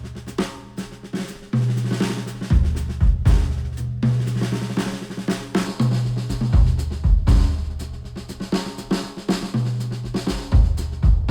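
Instrumental music with a full drum kit (kick, snare, hi-hat) and a held bass line, reproduced by open-back hi-fi headphones and picked up by microphones at the earcups.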